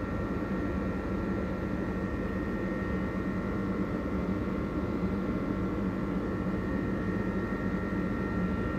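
Steady machine hum under a constant rushing noise, with a few tones held at the same pitch throughout and no change in level.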